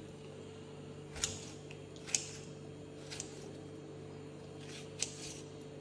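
Four sharp cutting sounds spaced a second or more apart, as food is cut up for a crab curry, over a steady low hum.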